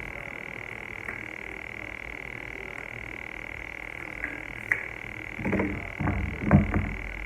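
Steady high-pitched chorus of frogs calling in the background, unchanging throughout. From about five and a half seconds in, knocks and rustles of the phone box and its contents being handled.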